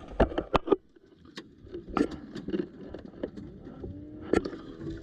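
Airsoft gun firing: four sharp shots in quick succession, then a few single shots.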